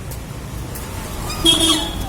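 Steady street traffic noise with a short, high, flat toot about one and a half seconds in, and faint puppy whimpers under it.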